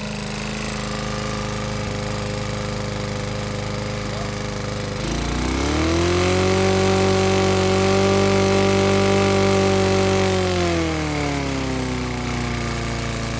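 Briggs & Stratton small engine running with a rod knock. About five seconds in it revs up, holds the higher speed for about five seconds, then drops back to idle.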